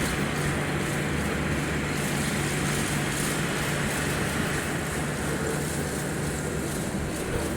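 Yanmar GC333 combine harvester running steadily, making an abnormal noise while harvesting rice.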